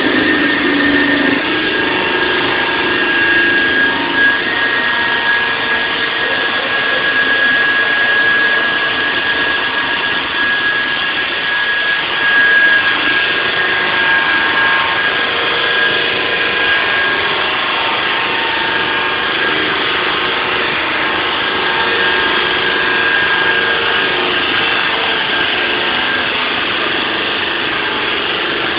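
SAW160 concrete saw running continuously, a high whine over a loud, even mechanical noise.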